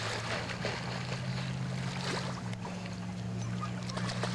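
Water splashing and sloshing around people swimming, over a steady low hum.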